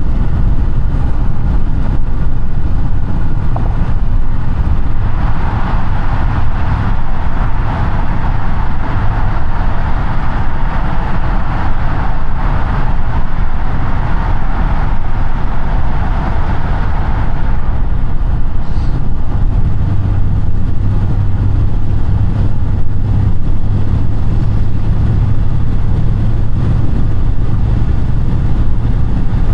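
Audi A5 8T car driving at steady speed, its engine and road noise making a continuous low rumble. A higher hiss from the road rises for several seconds in the first half and then fades, and a steady low hum comes through more strongly in the last third.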